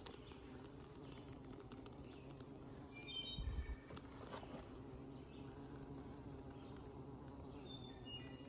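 Honeybees humming steadily inside a cedar Layens swarm trap, heard close to its entrance. Short bird chirps come twice, about three seconds in and near the end, with a low thud around the first of them.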